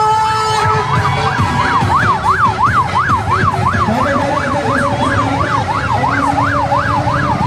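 Electronic siren in fast yelp mode, its pitch sweeping up and down about three times a second, starting about a second in over the low hubbub of a street crowd.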